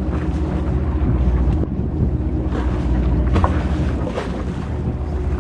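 Small boat's engine running steadily with a low rumble, with wind noise on the microphone.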